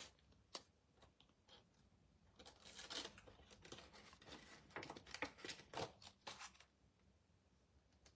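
Faint crinkling and light clicks of a clear plastic stamp sheet being handled as a clear stamp is peeled off it, in a few short spells.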